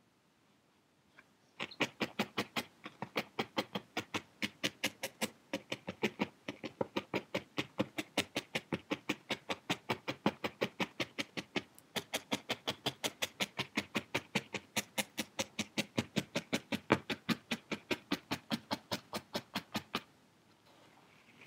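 Felting needle stabbing repeatedly through wool into a foam felting pad, a quick, even run of about five soft punches a second that starts about a second and a half in and stops near the end.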